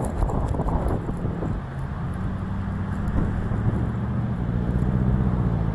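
Wind buffeting the microphone, easing off after about a second and a half, then a car engine's steady low hum.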